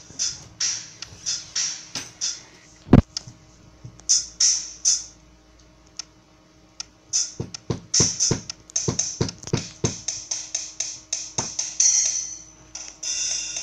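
Sampled drums from a phone drum-kit app, tapped at an uneven pace: mostly closed hi-hat hits, with one loud kick drum about three seconds in and a cluster of lower drum hits around the eighth second. These are followed by a quick run of hi-hat taps and a longer cymbal wash near the end.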